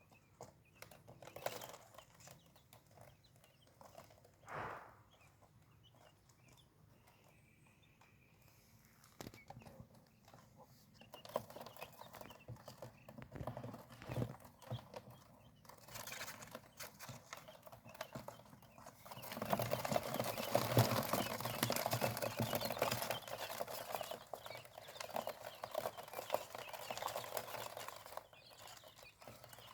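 Two-day-old quail chicks moving about and pecking: rapid light tapping and scratching, sparse at first and much busier in the last third.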